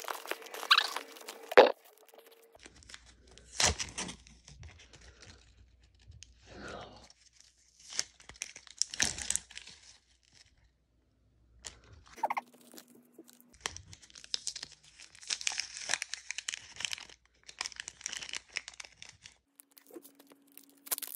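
Paper wrappers of adhesive bandages being peeled and torn open and crinkled by hand, in irregular bursts of rustling with short pauses and a few sharp clicks.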